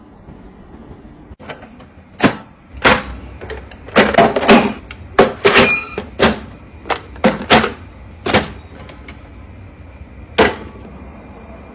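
Kitchen items being set down and handled: about a dozen sharp taps and clacks at uneven intervals, a few with a brief ringing clink.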